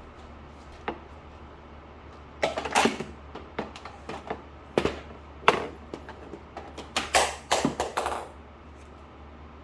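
Hands handling packaging material: a series of crinkles and rustles in irregular bursts, starting about two and a half seconds in and stopping near the end.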